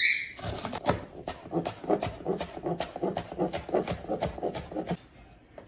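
Kitchen knife finely chopping onion on a plastic cutting board: quick, regular strokes of the blade against the board, roughly three a second, stopping about five seconds in.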